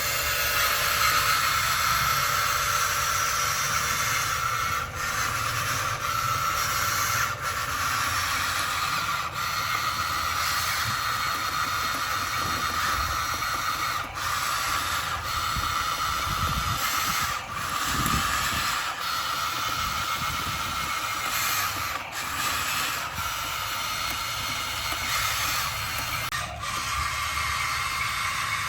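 RC heavy equipment working: a steady hiss over a low rumble, dipping briefly every second or two.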